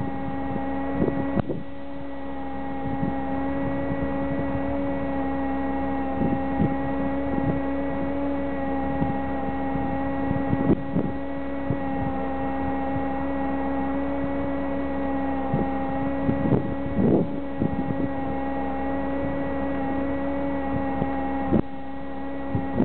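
Steady mechanical hum at one pitch with overtones, with irregular buffeting and knocks of wind on the microphone.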